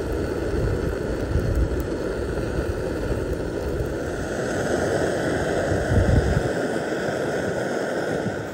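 A slice of bread frying in oil in a pan over a gas camping stove: steady sizzling together with the hiss of the burner, over a low rumble that drops away about six and a half seconds in.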